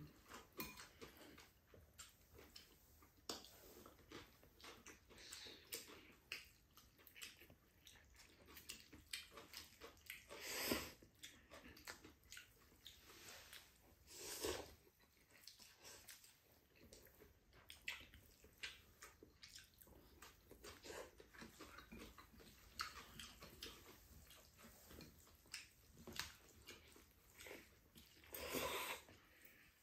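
Faint eating sounds: people slurping up noodles and chewing, with small clicks throughout and a few louder slurps, one of them near the end.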